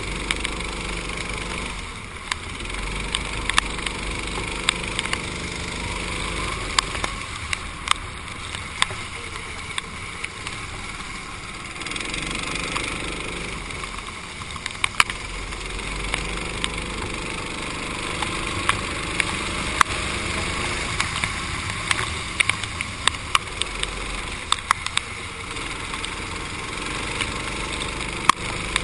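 Go-kart engine heard onboard, its pitch rising several times as it accelerates out of corners, over a steady hiss of wind and wet-track spray. Scattered sharp clicks and ticks sound throughout.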